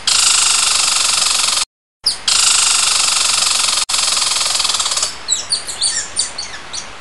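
Squirrel calling: a long, rapid, raspy chatter that breaks off briefly about a second and a half in and then resumes, followed near the end by a string of short, high chirps.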